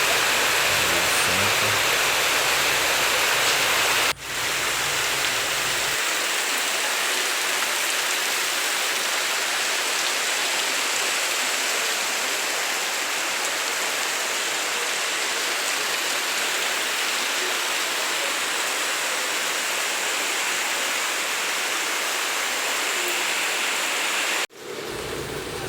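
Heavy rain falling in a steady loud hiss. A low hum sits under it for the first several seconds. The rain sound breaks off abruptly twice and resumes.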